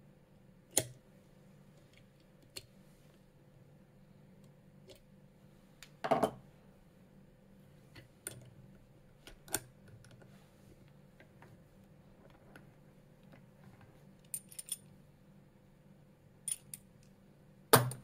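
Small metallic clicks and clinks of a disc detainer padlock and its pick being handled, scattered and irregular, with a short rattle about six seconds in and a sharp knock near the end.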